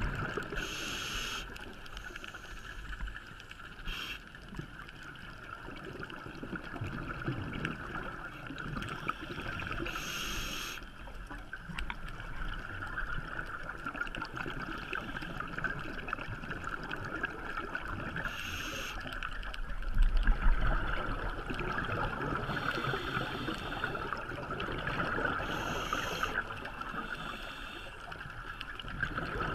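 Underwater sound of a scuba diver breathing through a regulator: a short hiss on each inhale every several seconds, with bubbling exhales between them, over a steady underwater hiss.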